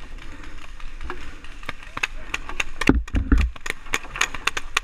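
Paintball markers firing: a fast, irregular string of sharp pops, densest in the second half, with a heavier low thump about three seconds in.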